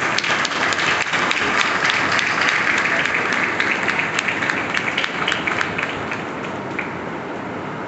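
Audience applauding, many hands clapping together; the clapping thins out and fades after about six seconds.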